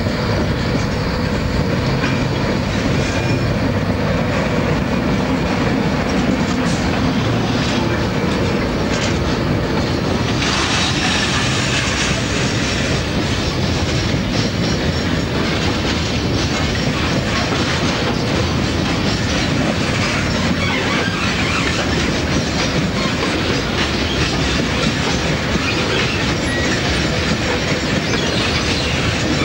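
A 48 class diesel locomotive running past close by, followed by a long train of CXD coal wagons rolling past, their wheels clattering over the rail joints. About ten seconds in, the sound turns brighter and harsher as the wagons take over from the engine.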